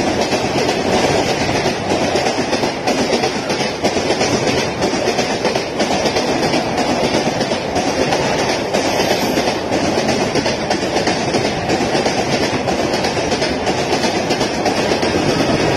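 Humsafar Express LHB coaches running past at speed, a loud steady rush of wheel-on-rail noise with many quick clicks of wheels over rail joints.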